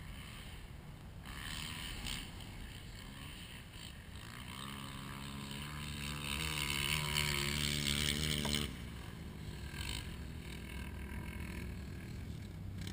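ATV engine running low, then revving up from about four seconds in, rising in pitch and getting louder. The revs cut off suddenly near the nine-second mark, and the engine drops back to a low rumble.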